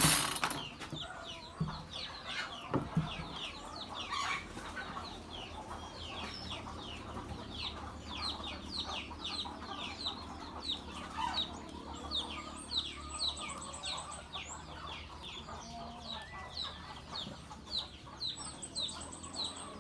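A loud burst cuts off in the first half-second, after which chickens cluck and birds chirp in a long string of short, quickly falling calls, several a second, over a faint steady low hum.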